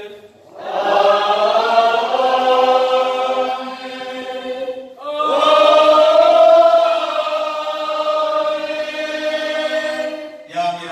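Voices singing a slow liturgical chant in long held notes, two phrases of about five seconds each.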